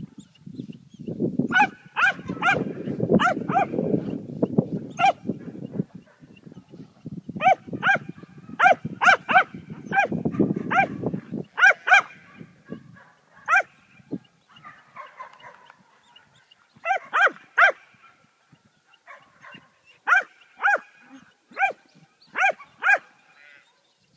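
A dog barking in quick runs of several sharp, high barks, with pauses between the runs. A low rumble runs underneath through the first half.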